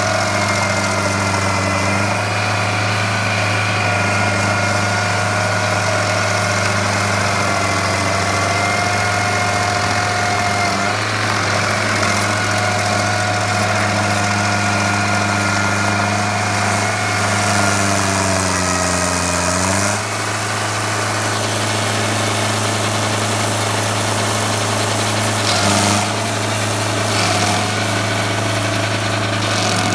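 Stump grinder's 44 hp Kubota diesel engine running hard while the cutter wheel grinds into a stump and throws wood chips. About eighteen seconds in the engine pitch sags briefly, and the sound changes about two seconds later.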